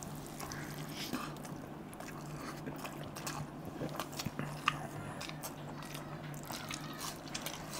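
Close-up eating sounds of people chewing mouthfuls of rice and curry eaten by hand: scattered soft smacks and small clicks, with no talking, over a faint steady low hum.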